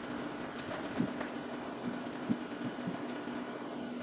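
Low steady hum of electronics-bench equipment with a faint hiss, and a few small, quiet taps of tools on the board.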